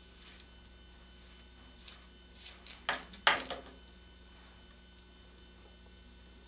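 Faint swishes of a slicker brush drawn through a Shih Tzu's face hair, then two sharp knocks about three seconds in as the slicker brush is set down on the grooming table. A steady low mains hum runs underneath.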